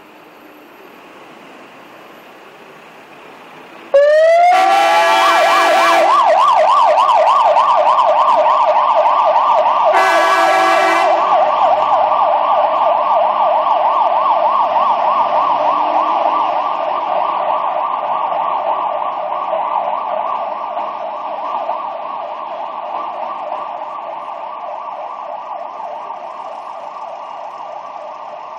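Fire engine's siren switching on about four seconds in, winding up and then running a fast warbling yelp. The engine's air horns blast twice, briefly, over it. The siren fades gradually as the fire engine drives away.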